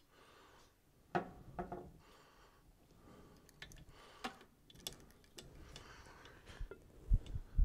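Scattered small clicks and light taps, with a couple of louder low thumps near the end.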